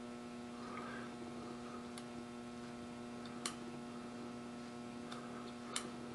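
Low, steady electrical hum of shop equipment, with a few light metallic clicks as the fixture is handled, about two, three and a half and almost six seconds in.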